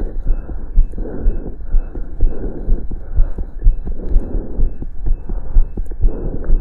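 A person's heart sounds heard through a stethoscope during exercise: a fast heartbeat, about two beats a second, raised by the exertion.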